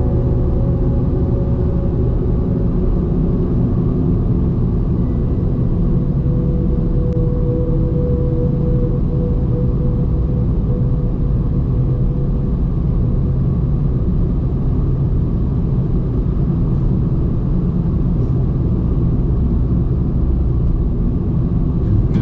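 A car driving on a snowy road: the engine and tyres make a steady low rumble.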